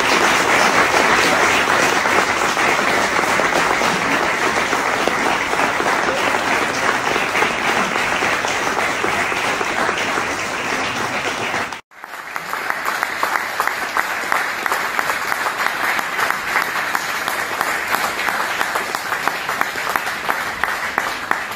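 A roomful of people applauding steadily. The applause cuts off abruptly about halfway through and picks up again at once, with single claps standing out more in the second stretch.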